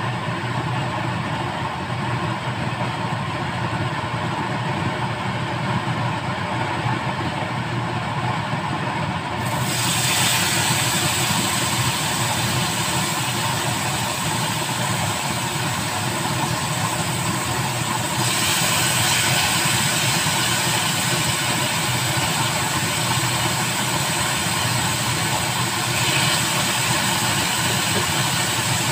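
Marinated chicken breasts sizzling in a hot cast-iron grill pan over a gas burner, over a steady low rumble. The sizzle grows louder and brighter in steps about a third and two-thirds of the way in, as more pieces go into the pan.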